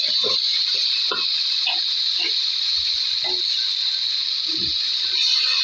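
A steady, high-pitched hiss that does not change, with faint scattered short sounds underneath.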